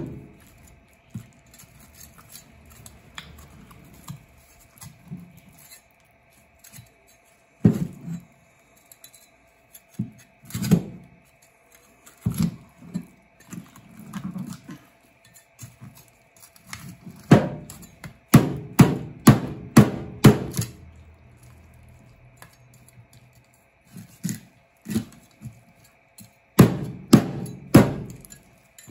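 Chinese cleaver chopping through a yellowtail's head and bones onto a plastic cutting board. A few scattered thunks come first, then a quick run of chops at about three a second, then another cluster near the end.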